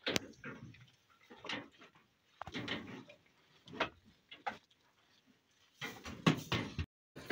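Goats biting, tearing and chewing fresh hydroponic fodder sprouts held out by hand: irregular crisp crunches and rustles, with a quick cluster of louder ones near the end before the sound cuts off.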